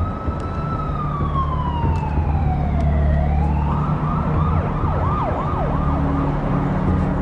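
Emergency vehicle siren: one slow wail falling in pitch for about three seconds, then switching to a fast yelp of about three up-and-down sweeps a second, over a low steady drone.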